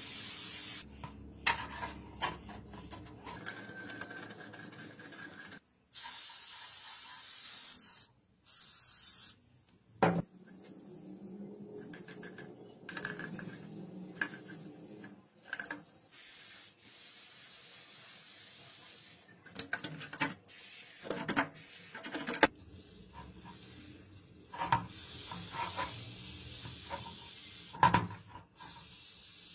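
Aerosol can spraying through a red extension straw onto rusted gun parts in several short hissing bursts. Between the bursts come rubbing and small knocks as the metal parts are handled.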